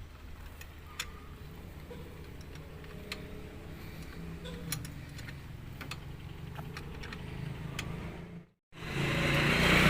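Scattered light metallic clicks and taps of hand tools working on the alternator's mounting bolts in a car's engine bay, over a low hum. Near the end the sound cuts out for a moment, then a louder steady rushing noise starts.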